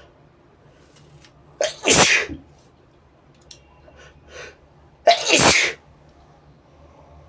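A person sneezing twice, two loud full sneezes about three and a half seconds apart, brought on by tickling the nose with a brush.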